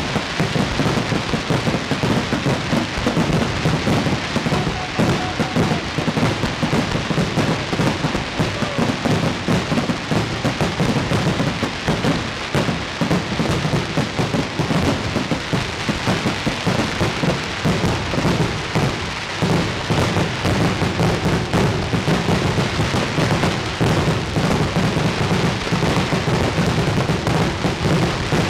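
A fireworks display at full intensity: a dense, continuous crackle of many bursts and reports each second, with no pauses.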